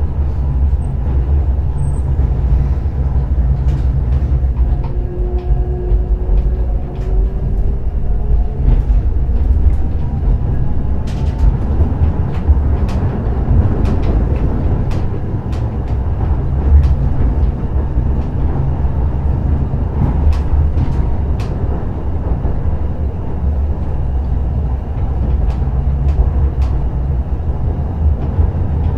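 Hakodate City Tram class 3000 streetcar running, heard from inside the car: a steady low rumble of the wheels on the rails, with the motor's whine rising in pitch a few times and scattered clicks from the track.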